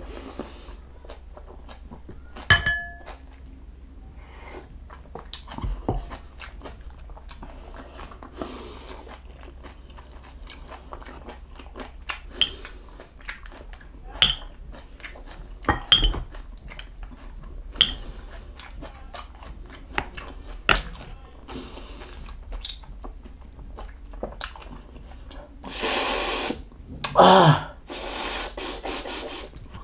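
A person chewing and eating beef bulalo and bone marrow, with scattered sharp clinks of cutlery against a bowl or plate, one ringing out briefly. Near the end come two or three louder, longer noisy bursts.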